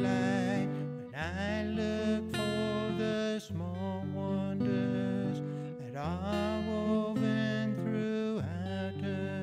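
Fingerpicked acoustic guitar, with a man's voice singing long held notes over it that swoop up into each new phrase.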